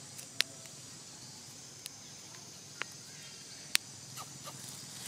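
Steady high-pitched insect chirring in the trees, broken by four sharp clicks, the loudest about half a second in and near four seconds in.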